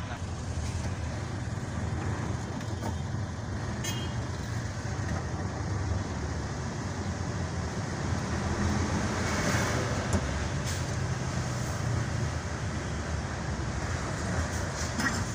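Road traffic heard from inside a vehicle's cab: a steady low engine and road hum with the noise of surrounding trucks and cars, growing somewhat louder about two-thirds of the way through as the vehicle moves along in traffic.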